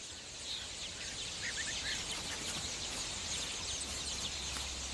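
Rosy starlings chattering in a breeding colony: a dense wash of short chirps and calls. A steady low hum comes in near the end.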